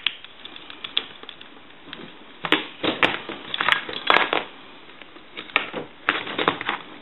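Irregular clicks and short clatters of small parts being handled as wire connectors are fitted back onto a payphone handset's transmitter terminals.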